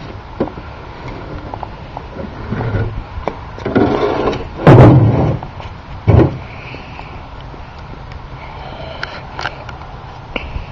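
Remote-control toy car jumping and landing: a rising rush, then a heavy thud about halfway through and a second sharp knock a second and a half later, with small clicks and knocks around them.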